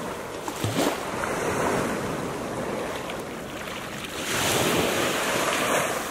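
Small waves lapping and washing up on a sandy beach, with one louder wash rushing in about four seconds in. Wind buffets the microphone.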